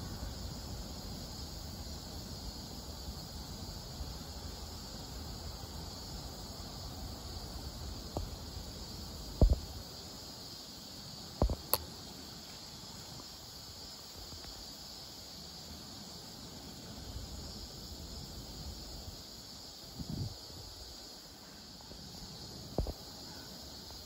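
Steady outdoor background with an even, high-pitched chirring of insects, broken by a few brief knocks and clicks, the loudest about nine and a half seconds in.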